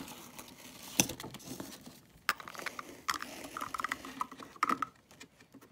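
Small plastic toy figures and a plastic toy camera being handled and set down on a play surface: a few sharp taps and clicks, the loudest about a second in, with light handling noise between them.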